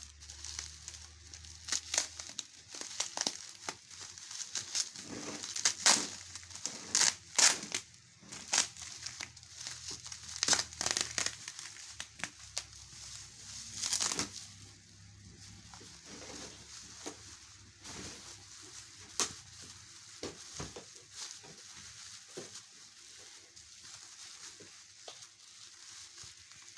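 Packaging crinkling and crackling in irregular bursts as it is handled and unwrapped, busiest in the first half and fainter toward the end.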